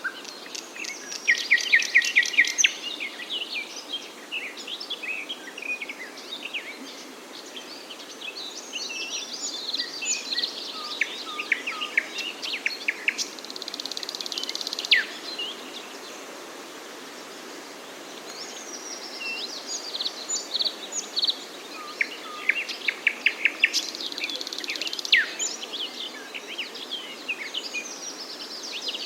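Several songbirds chirping and singing at once, their calls overlapping, over a steady outdoor hiss. Fast trills of repeated notes come about two seconds in and again near the end, with a buzzy note and a sharply falling whistle around the middle.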